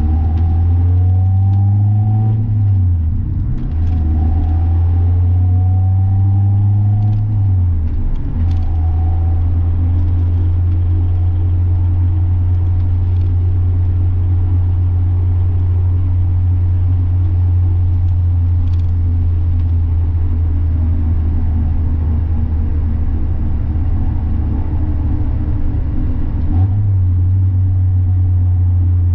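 Mazda Miata's four-cylinder engine and exhaust pulling through two gear changes: the note rises and drops at each shift, about three and eight seconds in. It then holds at steady cruising revs, with a brief dip near the end.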